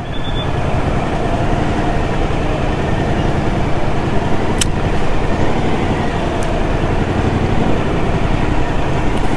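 Steady din of dense city traffic heard from a motorcycle crawling through a jammed roundabout, with engines running close on every side. A single sharp click sounds about four and a half seconds in.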